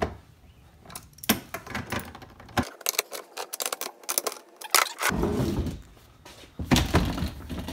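Irregular clicks and light knocks of small screws and washers being turned in by hand on a jet ski's hard plastic deck. Near the end come a few louder knocks as the plastic seat is handled.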